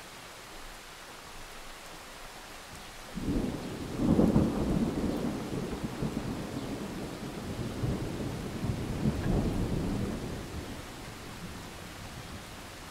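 A thunderclap breaks about three seconds in, then rolls and rumbles unevenly for several seconds before dying away. Steady rain falls throughout.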